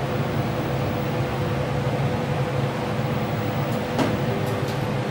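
Steady mechanical drone with a low hum and a faint steady tone, with one brief click about four seconds in.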